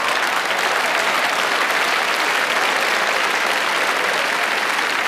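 Large theatre audience applauding a punchline, steady and sustained.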